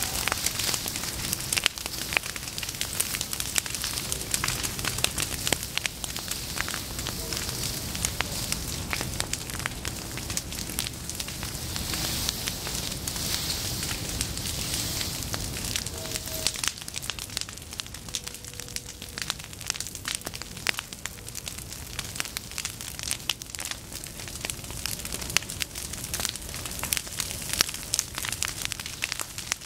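Prairie fire burning through dry, standing tall forbs such as goldenrod: dense crackling and popping over a steady hiss.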